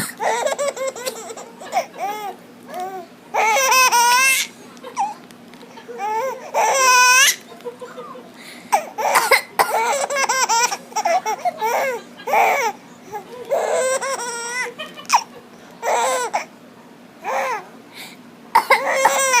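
Baby laughing hard in repeated high-pitched bursts and squeals, set off by an adult's coughing, with short coughs between the laughs.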